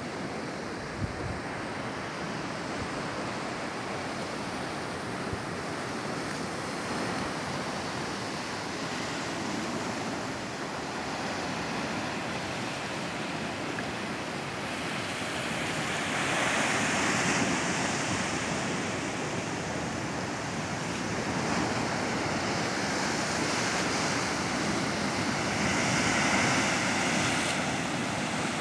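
Sea surf washing and breaking against a rocky shore, with wind on the microphone. The wash swells louder twice, around the middle and near the end, and there is a brief low thump about a second in.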